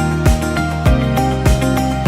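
Background music with a steady beat of about one thump every 0.6 seconds under sustained melodic notes.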